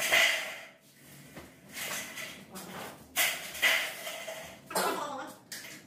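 Indistinct voices of workers, broken by short bursts of noise every second or so.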